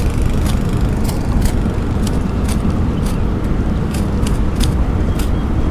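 Steady loud low rumble of wind buffeting the microphone by the sea, with light irregular clicks over it about twice a second.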